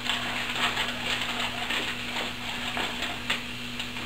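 Tilapia fillets and onion slices sizzling on the hot plates of an open George Foreman electric grill: a continuous crackle of small pops, with one sharper pop about three seconds in, over a low steady hum.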